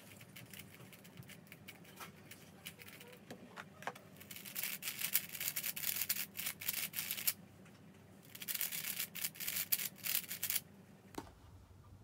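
A 3x3 speedcube turned rapidly, its layers clicking and clacking in two fast flurries with a short pause between, after some lighter scattered turns. A single knock follows near the end.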